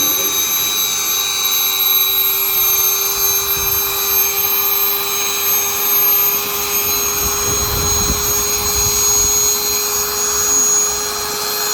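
Electric air pump running steadily, inflating an inflatable swimming pool, with a continuous motor whine whose pitch creeps slightly upward.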